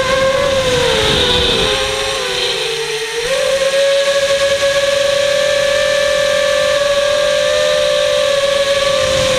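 FPV quadcopter's brushless motors and DAL Cyclone 5045 propellers whining in flight, heard from the onboard camera with some wind noise. About a second in, the pitch sags and the motor tones drift apart. Just after three seconds they snap back up together and hold steady.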